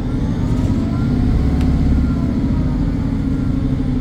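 Diesel engine of a British Rail Class 150 Sprinter unit running under power: a loud, steady low rumble, with a faint turbocharger whistle gliding above it.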